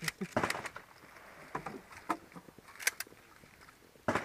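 A handful of sharp clicks and knocks at irregular intervals, about six in four seconds, over a faint background hiss.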